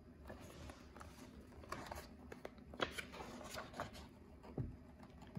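A page of a picture book being turned by hand: faint paper rustling with a few soft brushes and taps in the middle.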